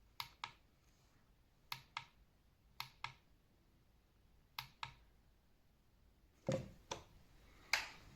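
Small plastic buttons on a digital projection alarm clock being pressed four times, each press giving a quick double click as it goes down and comes back up. Near the end come a soft thump, another click and a louder rustling scrape as the clock is handled.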